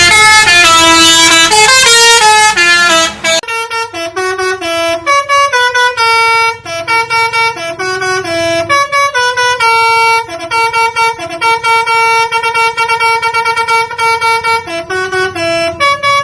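Telolet basuri musical horn playing a fast tune of short stepping notes. For the first three seconds or so the horn is dense and loud over a low rumble; after that the notes come cleaner and choppier.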